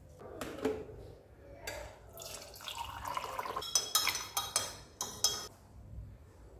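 A metal spoon stirring a drink in a ceramic mug. It scrapes and clinks against the sides, with a quick run of ringing taps about halfway through.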